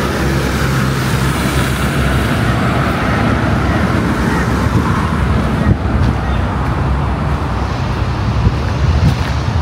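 Steady road traffic noise: a continuous rumble of passing cars.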